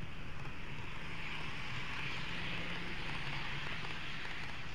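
N-gauge model train running along the track, heard from a camera car riding on it: a steady whirring and rolling noise over a low hum, swelling a little in the middle.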